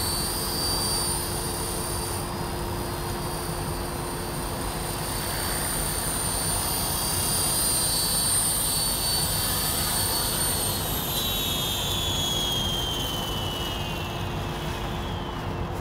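Electric Honey Bee King 4 RC helicopter hovering and landing: a steady high-pitched motor whine over rotor noise. From about eleven seconds in the whine falls in pitch and fades as the motor spools down after touchdown.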